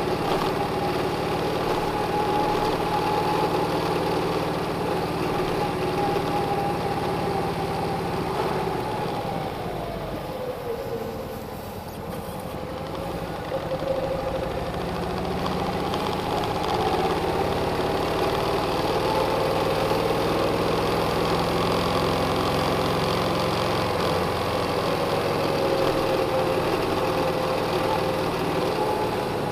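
Car engine and road noise heard from inside the cabin while driving. The engine tone falls and quietens about ten seconds in as the car slows, then climbs again as it picks up speed.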